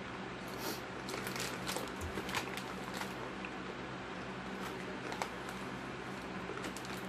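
An Xtra Hot Cheetos bag crinkling as it is handled and reached into, with chips crunching, a string of short irregular crackles, busiest in the first few seconds.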